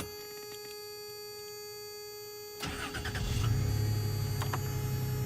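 1996 Toyota T100's 3.4-litre V6 (5VZ-FE) starting about two and a half seconds in, catching and settling into a steady idle.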